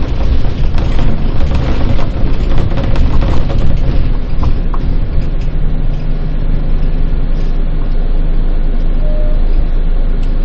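A bus driving on the road: a loud engine drone and road rumble, with rattling knocks through the first few seconds, then a steadier engine hum.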